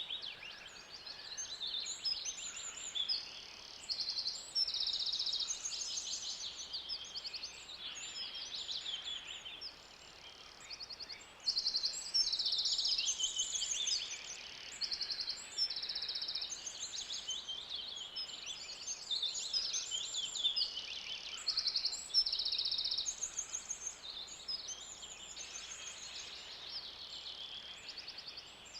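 Forest ambience full of songbirds: many high-pitched trills and chirps overlapping one another, each a rapid run of notes lasting about half a second to a second, over a faint steady background hush.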